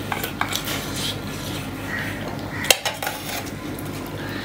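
Stainless-steel bowl and steel plate clinking as dal is poured over rice, with a few light clinks early on and one loud, sharp clink near the middle.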